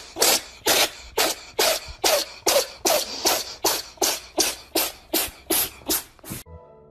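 A cat making a rapid series of short, breathy, cough-like huffs, about three a second, in an even rhythm that stops about six and a half seconds in.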